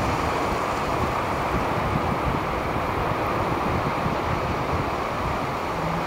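Wind buffeting the microphone over the steady wash of waves breaking onto the beach.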